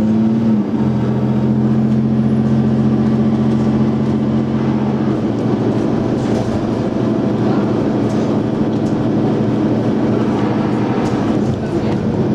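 A single-deck bus's engine and automatic gearbox heard from inside the saloon, pulling hard with a steady two-note drone. The drone steps in pitch about half a second in and drops away about five seconds in, leaving the running rumble and rattle of the bus body.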